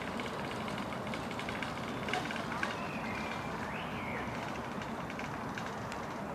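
Steady hum of road traffic, with a few light clicks and a short whistling glide in the middle.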